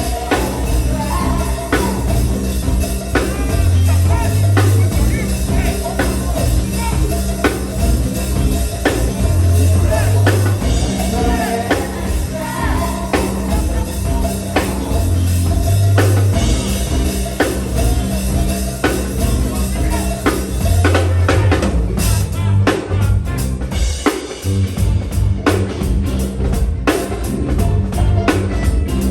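Live band playing go-go style music: a drum kit keeping a steady beat over a heavy, repeating bass line, with a voice singing or calling over it.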